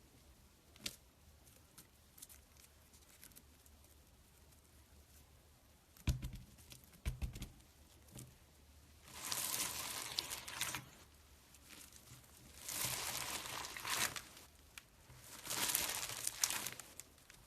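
Slime being squeezed and stretched by hand, crackling and crinkling in three spells of a second or two each, after a couple of low thuds about six seconds in.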